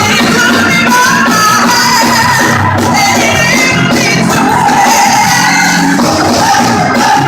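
Loud live gospel music: a band playing with singing over it, without a break.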